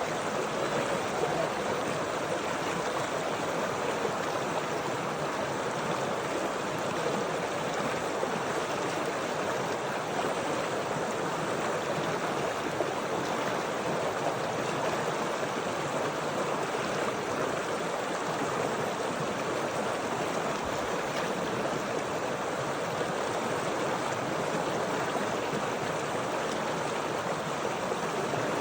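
Flowing water running steadily, an even noise with no breaks or changes.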